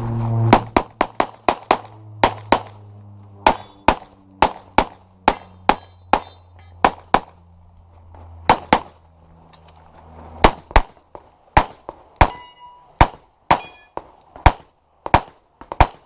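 A pistol fired in quick pairs and short strings during a practical shooting stage, about thirty shots with brief pauses between strings. Some hits leave a short ring from steel targets.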